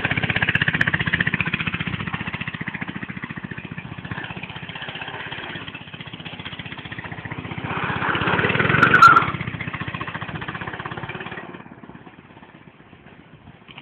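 Go-kart's small engine running with a fast, even beat. It is loud at first and fades as the kart moves away, then swells to its loudest about nine seconds in before dropping off sharply near the end.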